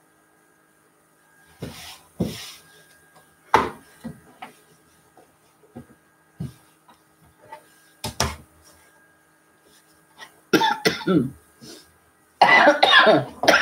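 Soft rustles and light knocks of fabric being folded and laid on a cutting table, then a woman coughing and clearing her throat in two loud bouts near the end.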